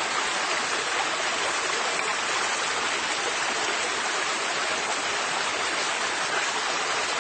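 River water flowing and rushing steadily, an even bright wash of water noise with no breaks.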